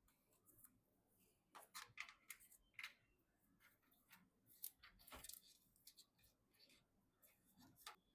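Faint scattered clicks, taps and light rustles of hands handling PC parts and cables. There is a cluster of them in the first half and a sharper knock about five seconds in.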